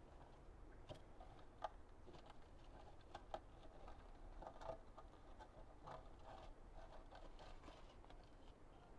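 Faint, scattered crackling and rustling as old foam padding is peeled by hand off a rusty metal seat pan.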